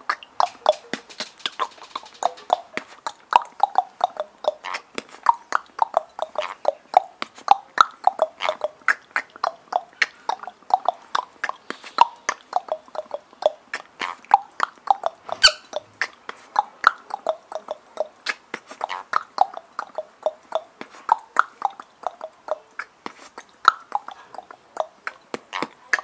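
A man beatboxing with his mouth: a quick, rhythmic stream of lip pops, clicks and short puffs, several a second, with one sharper crack about halfway through.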